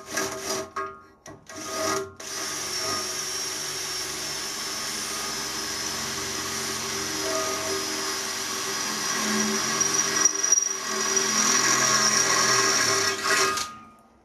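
Electric hand drill cutting into a welded aluminium tube with a long twist bit. It gives a few short bursts, then runs steadily for about eleven seconds and stops just before the end.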